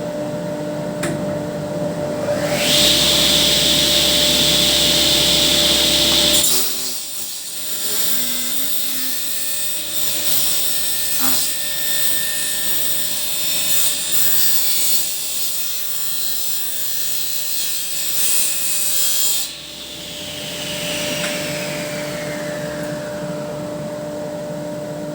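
Table saw running and cutting through scrap wood: a loud first cut a few seconds in, then a longer cut until near the end. The saw is then switched off and the blade winds down with a falling whine, while a steady hum goes on underneath.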